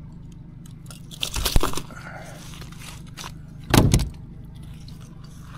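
Boat's outboard motor idling steadily, with two short bursts of loud knocking and rattling in the boat, about a second and a half in and again near four seconds in.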